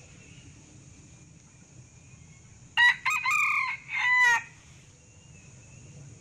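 Male red junglefowl crowing once about three seconds in: a short, clipped crow in about four notes, the last one dropping in pitch. A faint steady high hiss runs underneath.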